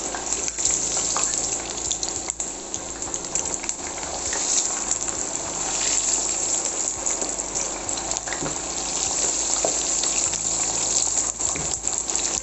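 Cut potato sticks deep-frying in a pan of hot oil: a steady, vigorous sizzle and bubbling. The potatoes are still pale, in the early stage of frying, when the water in them is boiling off fastest.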